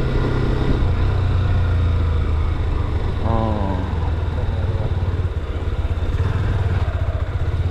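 Honda CB motorcycle engine running with a steady low hum.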